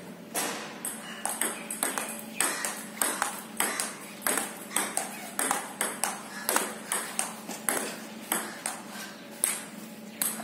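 Table tennis rally: a celluloid ball clicking off rubber bats and bouncing on the table, a steady quick rhythm of about two or three sharp clicks a second.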